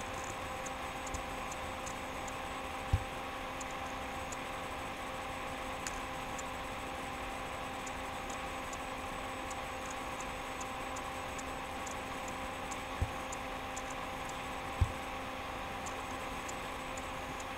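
Steady electrical hum and hiss with faint, irregular ticking, broken by three short, dull low thumps: one about three seconds in and two more in the last third.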